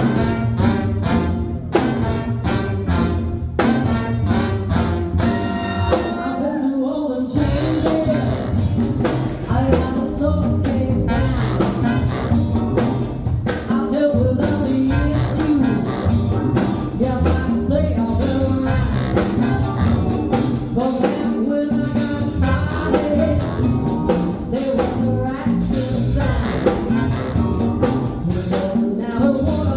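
A song played by a band, with a steady beat and a singing voice over it.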